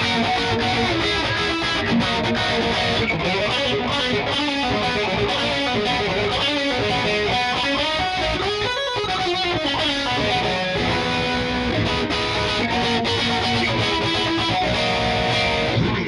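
McLorence JP100 electric guitar played with distortion on its humbucking pickups (coil split off): continuous riffs and lead lines, with a fast run of notes about midway.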